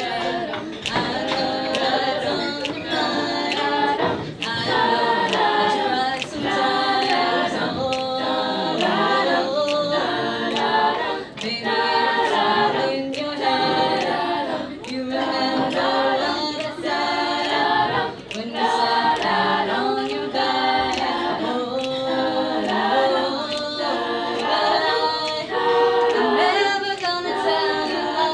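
Girls' a cappella group singing in harmony, several voices together with a lead singer on a handheld microphone.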